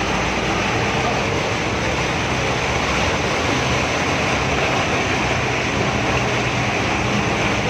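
Floodwater rushing and churning against the side of a bus as it drives through a deeply flooded road, a loud steady wash of splashing water with the vehicle's engine running underneath.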